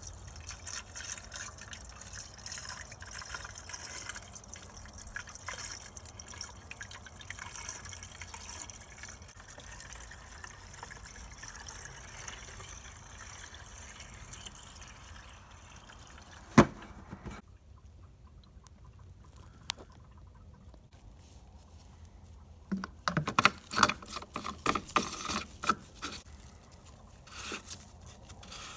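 Coolant pouring from a plastic jug into a car's plastic coolant expansion tank, a steady trickling pour that stops a little over halfway through. A single sharp knock comes just before the pour ends. Near the end there is a cluster of plastic clicks and scrapes as the tank's screw cap is fitted and tightened.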